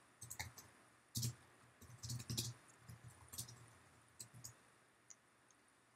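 Faint typing on a computer keyboard: uneven keystroke clicks that stop about five seconds in.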